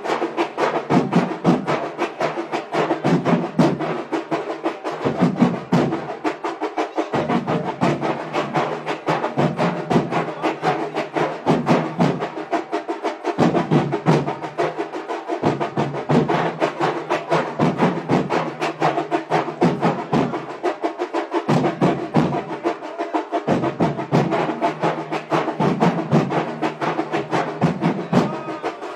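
Music made of fast, continuous drumming: rapid sharp strikes in a steady rhythm.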